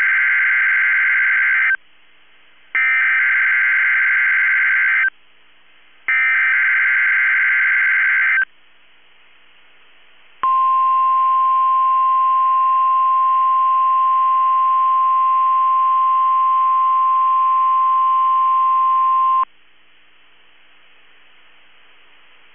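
NOAA Weather Radio Emergency Alert System test signal. Three bursts of warbling digital data tones, the SAME header, each about two seconds long with a second's gap between them. Then the 1050 Hz warning alarm tone is held steady for about nine seconds and cuts off, leaving faint broadcast hiss.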